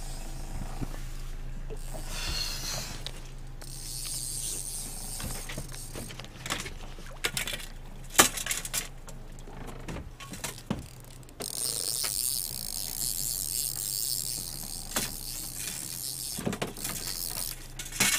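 Fishing reel clicking and ratcheting while a hooked salmon is played to the boat, with two long stretches of high-pitched buzzing and scattered sharp clicks and knocks over a low steady hum.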